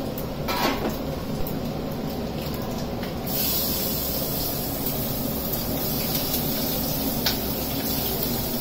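Kitchen cooking sounds: a few clinks of pots and utensils over a steady low background noise. About three seconds in, a steady high hiss sets in and keeps going.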